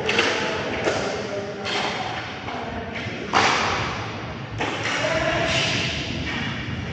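Inline hockey play in an echoing arena: sharp knocks and thuds from the puck, sticks and players against the boards and floor, coming about a second apart, the loudest about three seconds in.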